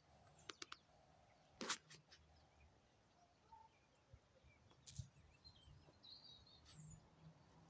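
Faint outdoor garden ambience with a few short, distant bird chirps, a couple of soft clicks near the start and a brief rustle.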